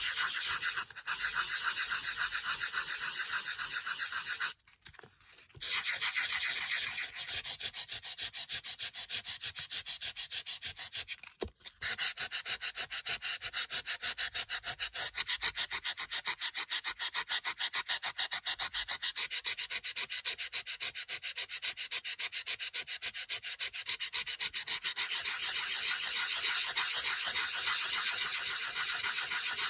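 Sanding block rubbed rapidly back and forth over dry-embossed white-core cardstock, scuffing the colour off the raised design to show the white core beneath. The strokes stop briefly twice, once near the start and once about a third of the way in.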